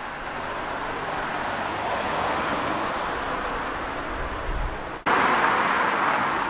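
A car on the road: a steady rush of engine and tyre noise that swells, then breaks off abruptly about five seconds in and comes back louder.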